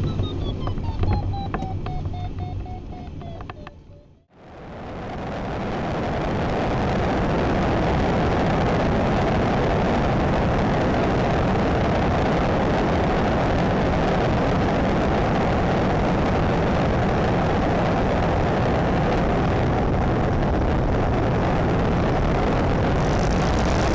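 Steady, loud rushing of airflow and engine noise on a camera mounted under a single-engine high-wing light plane in flight. It fades in after a sudden cut about four seconds in. Before the cut, a separate fading sound slides downward in pitch.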